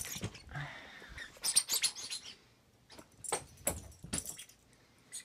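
A small dog toy being thrown and a small dog scrambling after it: a short clatter about a second and a half in, then a few separate sharp clicks and knocks.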